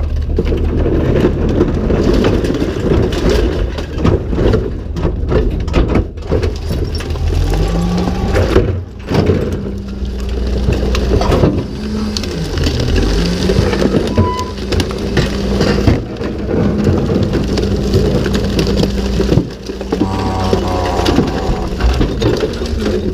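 Rear-loader garbage truck running at the hopper. The engine revs up for the hydraulics as the cart tipper works, and settles back a few seconds later. Under it runs a steady clatter and crunch of recyclables being dumped and crushed in the hopper.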